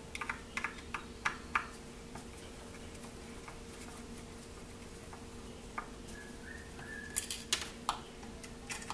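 Small Phillips screwdriver turning tiny screws out of an aluminium heatsink: light metallic clicks in quick clusters, one near the start and another near the end.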